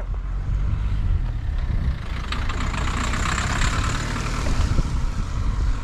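Strong wind buffeting the microphone with a steady low rumble. About two seconds in, a rushing hiss swells up and fades again after a couple of seconds.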